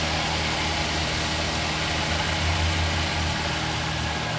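Daihatsu Terios's 16-valve VVT-i four-cylinder petrol engine idling steadily with the bonnet open, a low hum that swells slightly about halfway through. The seller calls the engine in very good condition.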